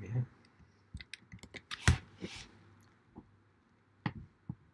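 Scattered clicks and taps of a computer keyboard and mouse: a quick run of taps about a second in, one louder click near two seconds followed by a short soft hiss, and a few more clicks near the end.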